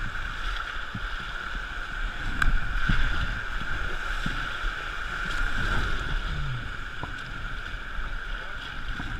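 Steady rushing of river water through a rocky stretch, with wind buffeting the microphone and a couple of light knocks.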